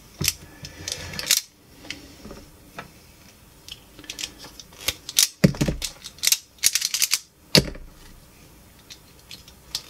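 Hand wire strippers clicking and snapping as they cut and strip the insulation off the end of a mains power cord: scattered sharp clicks, thickest a little past the middle.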